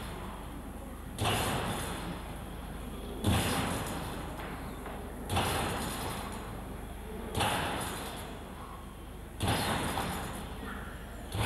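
Competition trampoline taking a gymnast's rebounds: a sharp thud from the bed and springs about every two seconds, each fading slowly.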